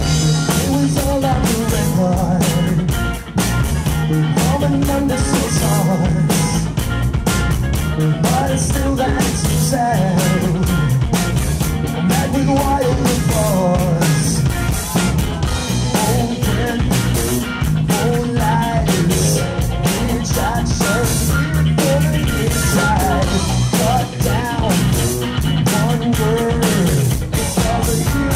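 Live rock band: a male singer with electric guitar, backed by a drum kit with a steady beat, performing a pop-rock song.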